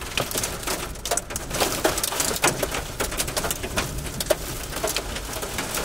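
Rain and hail striking the car's windshield and roof as many irregular sharp hits, over a steady low wind rumble, heard from inside the vehicle.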